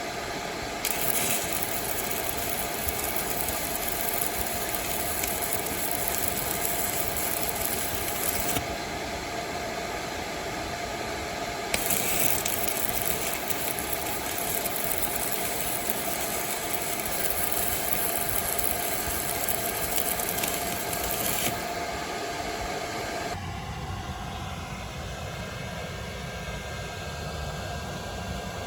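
Stick welding arc from a Hone MMA 205 welder crackling in two runs, about eight and ten seconds long, over the welder's steady cooling-fan hum, which cuts off near the end.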